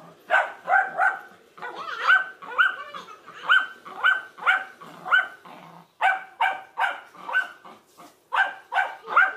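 Yellow Labrador barking over and over at a parrot, about two loud barks a second in uneven runs.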